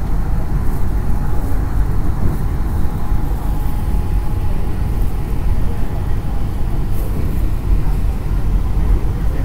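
MRT Yellow Line monorail train running at speed, heard from inside the carriage as a steady, loud low rumble.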